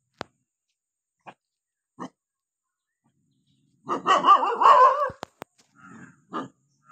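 A cat and dog confrontation: a loud, wavering, noisy animal cry lasting about a second, starting about four seconds in, with a few short sharp sounds before it and a couple of quieter ones after.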